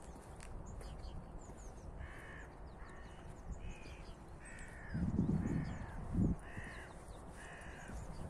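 A crow cawing, a series of about seven short harsh calls starting about two seconds in. Low rumbling bumps on the microphone about halfway through are louder than the calls.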